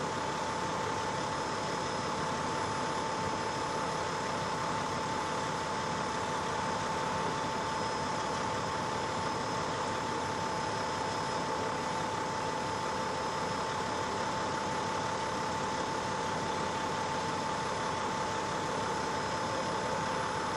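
Fire apparatus engines idling steadily at the scene: a constant, even engine noise with a steady mid-pitched hum running through it.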